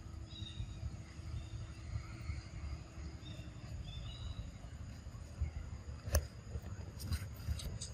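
Outdoor ambience under trees: a steady low rumble of wind on the microphone with a few faint high chirps, and several sharp clicks in the last two seconds.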